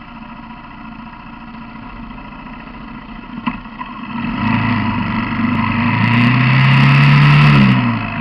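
Quad bike engine running, then accelerating from about four seconds in, its note rising and getting louder, before easing off near the end. A short click at about three and a half seconds.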